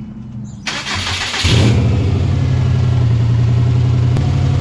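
2002 Subaru WRX turbocharged flat-four engine being started: a burst of cranking noise, then the engine catches about a second and a half in and settles into a loud, steady idle. The car is idling rough and misfiring, a fault the owner traced to a failing idle air control valve.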